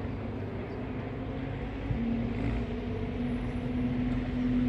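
MAN off-road trial truck's diesel engine pulling up a muddy slope, its engine note stepping up about two seconds in and holding steady, with a couple of short knocks from the truck along the way.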